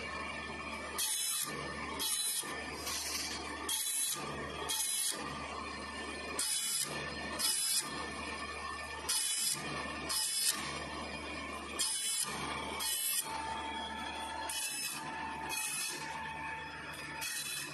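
Automatic circular saw blade sharpener grinding the blade's teeth: short rasps of the grinding wheel on the teeth, in pairs about a second apart, a pair every two to three seconds, over the steady hum of the machine's motor.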